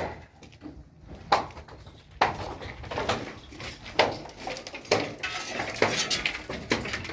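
A metal tool striking hard material over and over, about one blow a second, with scraping between the blows.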